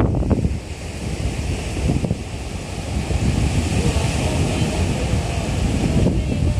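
Surf washing onto a sandy beach in continuous surges that swell and ease, with wind rumbling on the microphone.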